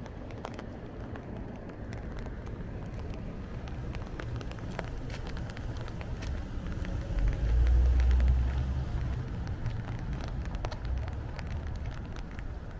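Outdoor street ambience from a walking handheld camera: a steady low rumble of wind on the microphone, with scattered light ticks. About seven seconds in, a stronger gust buffets the microphone for about a second.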